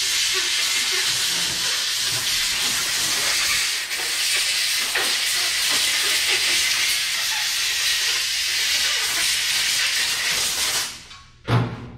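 Compressed-air blow gun hissing steadily as parts are blown off, cutting off abruptly near the end, followed by a single thud.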